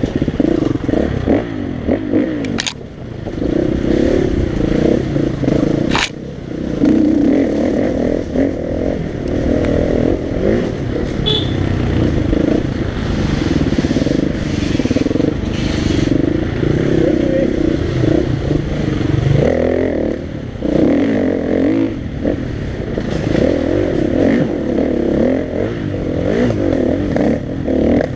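KTM 350 EXC-F's single-cylinder four-stroke engine, heard from the rider's helmet, revving up and down over and over as the throttle is opened and shut on a dirt enduro course. There are a few brief dips in the engine note and a couple of sharp knocks in the first six seconds.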